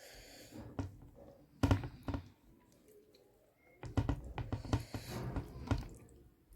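Close-up eating sounds: wet mouth clicks and smacks from chewing a mouthful of rice and curry, in a short cluster about a second and a half in and a longer run from about four seconds in until near the end.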